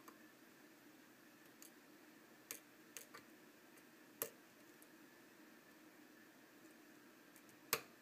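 Faint, scattered clicks of a lock pick and tension wrench working the pin tumblers of an old brass Sargent padlock, pins setting one by one during single-pin picking. The loudest click comes near the end.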